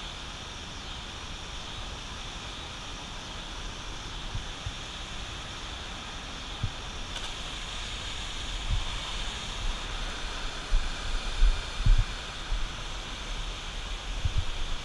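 Steady rushing of turbulent water below a dam. From about halfway through, low thumps and rumbles of wind or handling on the microphone are heard over it.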